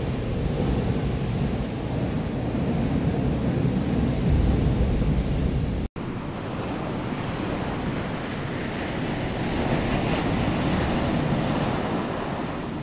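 Steady rushing of wind on the microphone, like surf, with a heavy low rumble. It cuts out for an instant about six seconds in and resumes as a lighter hiss with less rumble.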